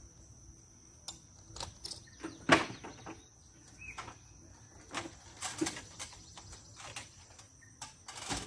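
Scattered knocks and clicks of tools and gear being handled, the loudest about two and a half seconds in, with another cluster about five to six seconds in. Under them runs a steady, high, thin insect drone.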